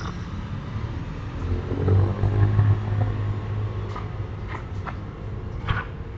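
Low engine rumble of a passing vehicle that swells and fades in the first half, followed by several short, sharp knocks in the last two seconds.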